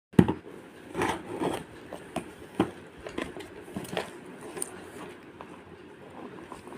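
A parcel being handled and opened by hand: a string of irregular knocks, clicks and scrapes of packaging, the loudest just after the start, over a soft rustle.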